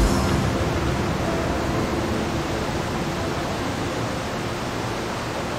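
Steady rushing of falling water from a waterfall, an even, unbroken roar.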